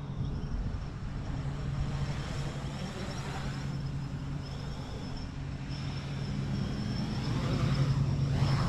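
Quadcopter's DJI motors and propellers humming steadily in flight, with a thin high whine above the hum, growing louder toward the end.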